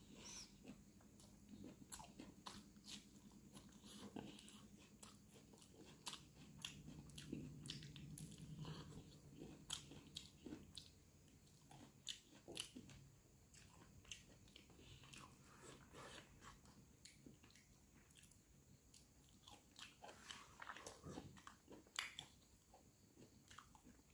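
Faint, close-up chewing and lip smacking of a person eating rice by hand, with many small wet clicks from the mouth and fingers.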